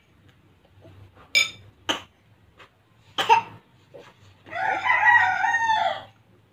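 A rooster crowing once, one long call of about a second and a half near the end, after a few short sharp sounds.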